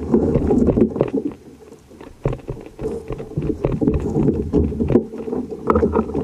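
Wind rumbling on the microphone and water sloshing against a fishing kayak's hull, with scattered knocks and clicks from the boat and gear.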